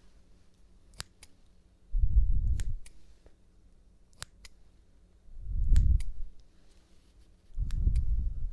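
Scissors snipping in slow, separate strokes, each a crisp metallic click. Three low, muffled rumbles under a second long, the loudest sounds, come about two seconds in, midway and near the end.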